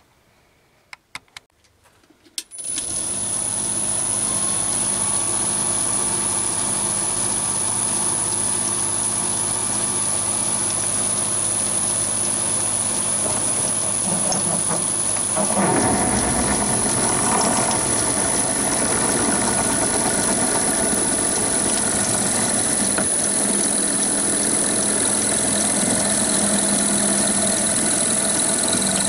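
A few clicks, then the Chinese mini lathe's motor starts and runs with a steady high-pitched whine. About halfway through, a large-diameter HSS twist drill bites into a bar of hardened steel, and a steady cutting noise joins the motor sound.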